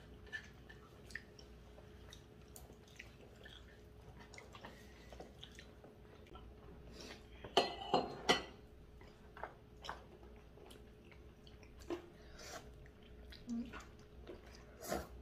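People eating at a table: chewing, noodle slurping and light clicks of metal chopsticks and spoons against bowls, with a louder cluster of noise about eight seconds in. A faint steady hum sits underneath.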